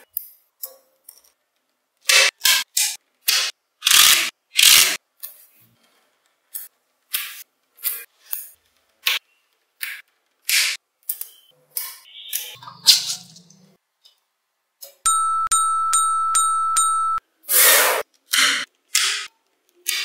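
Small magnetic balls clicking and snapping together, a series of sharp, irregularly spaced clicks. About three-quarters through, a steady electronic tone with regular ticks runs for about two seconds.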